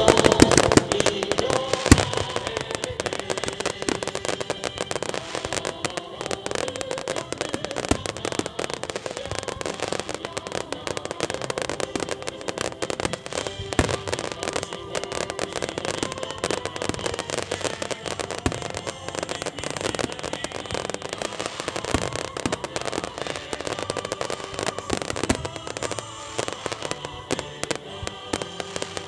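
Fireworks from a starmine barrage going off in rapid, dense succession, a steady stream of bangs and crackles, loudest in the first couple of seconds, with music playing underneath.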